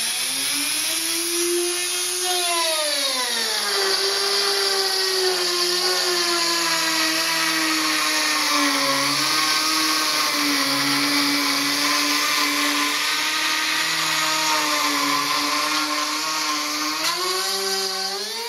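Dremel rotary tool running at high speed with a high-pitched whine as its bit cuts a groove in a wooden panel. The pitch drops a few seconds in as the bit takes the load, wavers while it works along the cut, and rises again near the end.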